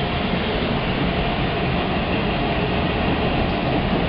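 Steady running noise of a Chicago 'L' train, heard from inside the railcar as it moves along the tracks.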